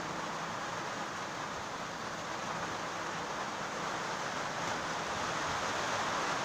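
Steady hiss of background noise with no distinct events, getting slightly louder in the second half.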